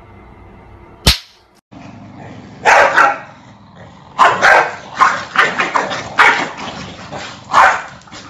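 A sharp click about a second in, then corgis barking at each other in a string of loud, quick barks.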